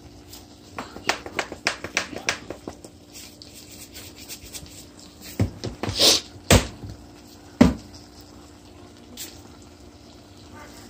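A plastic-capped seasoning shaker being handled and shaken over a pot: a quick run of light clicks and rattles, then a few sharper knocks about halfway through.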